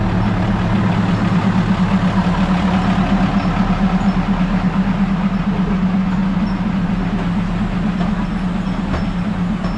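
Diesel passenger railcar passing slowly at arm's length, its engine running with a steady low hum.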